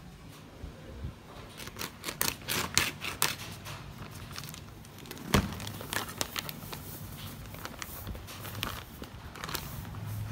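Plastic rice-flour bag crinkling and rustling, with a knife scraping at its mouth, as flour is tipped out into a plastic bowl. There is a flurry of sharp crackles in the first few seconds and one heavier thump about five seconds in.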